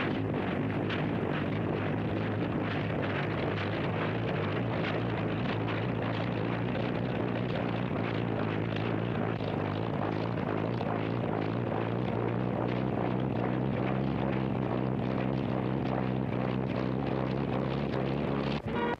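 The Sky Car helicopter's engine runs steadily, driving its reciprocating flat-plate propeller through a chain and transmission. It is an even mechanical drone that stops abruptly right at the end.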